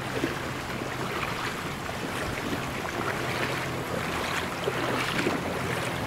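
Stream current rushing and splashing around legs wading against the flow.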